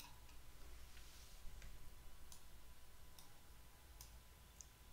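Near silence with a handful of faint computer mouse clicks spread through it, single sharp clicks a second or so apart.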